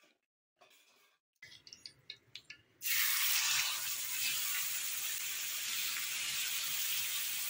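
Masala-coated pomfret slices going into hot oil on a griddle: faint clinks at first, then about three seconds in a loud frying sizzle starts suddenly and holds steady.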